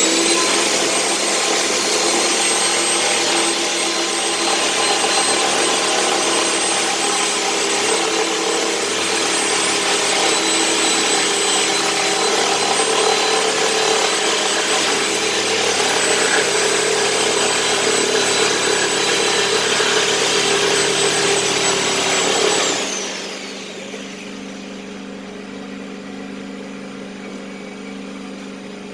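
Handheld power cutting tool running at full speed with a steady high whine as it cuts through the metal tub of a Candy washing machine. About three-quarters of the way through it is switched off and winds down, its whine falling in pitch, leaving a quieter steady hum.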